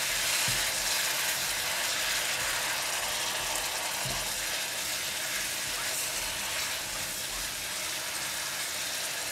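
Thick curry sauce sizzling steadily in a hot wok, with a few soft scrapes as it is stirred with a silicone spatula.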